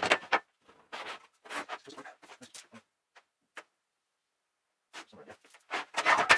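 A metal protractor rule and a wooden spirit level knocked, set down and slid on a plywood sheet while marking out. There is a loud clatter at the start, scattered light knocks and scrapes in the middle, and another loud scrape and clatter near the end as the rule is swept across the board.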